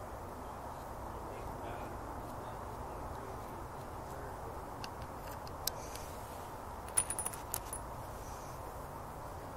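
A few light, sharp metallic clinks, one a little past halfway and a quick jingling cluster about seven seconds in, over a steady background hiss.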